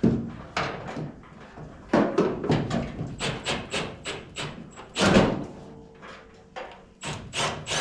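Metal knocks and clanks from tools working loose parts on a pickup truck's front end. They include a quick run of about four taps a second and one loud bang about five seconds in.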